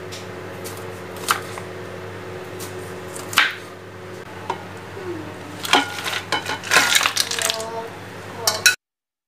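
A kitchen knife slicing through a lime on a plastic cutting board, the blade knocking sharply on the board now and then. Past halfway it gives way to a quick run of clinks with a short ringing, glass and ice knocking together. A steady low hum runs underneath.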